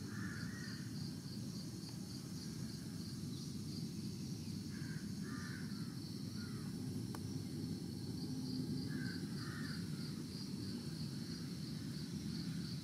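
Outdoor ambience: a bird calling in short groups of two or three harsh notes, about every four seconds, over a steady low rumble. A rapid high-pitched pulsing trill comes and goes.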